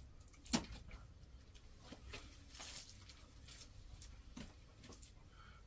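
Quiet room with a single sharp click about half a second in, then faint scattered ticks and rustling.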